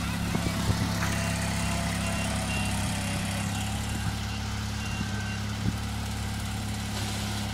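Small tractor engine, a Bolens fitted with a front loader, running at a steady speed, with a few light knocks in the first second and another near the end.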